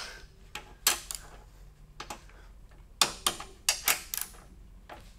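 Sharp metallic clicks from a socket wrench on the cylinder head bolts of a Tillotson 212 engine as the bolts are tightened to torque spec, some clicks coming in pairs.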